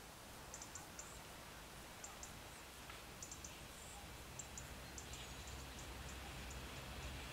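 Faint scattered high ticks in small irregular groups, then a low rumble that slowly grows over the last couple of seconds: a Siemens Desiro diesel railcar approaching.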